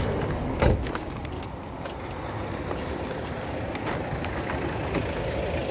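Street traffic noise, a steady rumble from passing vehicles, with a sharp knock of the handheld phone being jostled less than a second in.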